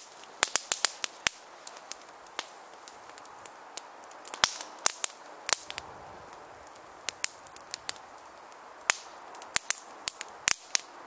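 Small wood fire of split kindling and twigs burning, crackling and popping irregularly over a faint hiss.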